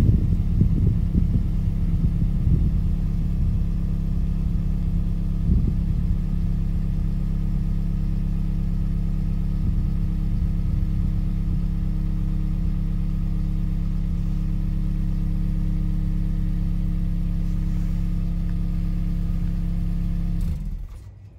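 Toyota Esquire (80-series, early) exhaust through its stock muffler, the engine idling steadily. It shuts off near the end.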